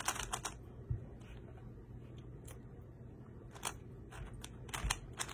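Plastic speed cube being turned by hand during a solve: short clacking turns, a quick cluster at first and again near the end, with only a few single clicks in between.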